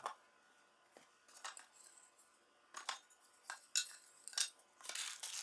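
Small metal screws and fittings from a furniture hardware pack clinking and rattling as they are handled, in a handful of separate light clicks, with a short rustle near the end.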